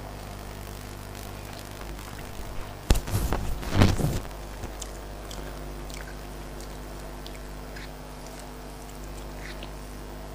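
Close-miked eating sounds of someone eating rice and greens by hand: mouth clicks and smacks while chewing, with a louder burst of eating noise lasting about a second, about three seconds in. A steady low hum runs underneath.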